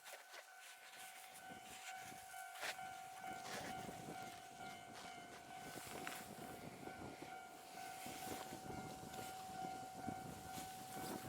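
Level crossing warning alarm ringing steadily while a JR Freight DF200 diesel-electric locomotive approaches. The locomotive's engine and rail noise grows from about two seconds in, with scattered clicks.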